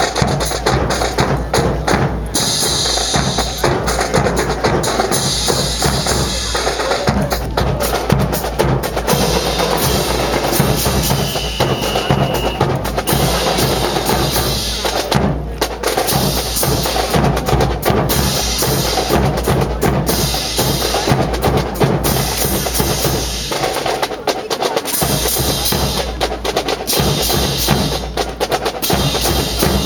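A marching drum corps playing drums in a steady, continuous rhythm.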